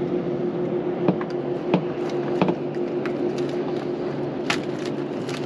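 A steady hum with a constant low tone under a wash of wind and water noise aboard a small boat, broken by a few sharp clicks and knocks as fish are handled and unhooked.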